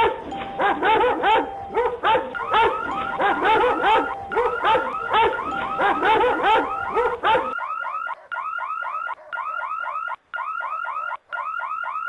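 Several dogs barking rapidly and excitedly, the barks overlapping. At about seven and a half seconds the barking stops and an electronic alarm takes over, sounding in about four rising chirps a second, in bursts broken by short gaps.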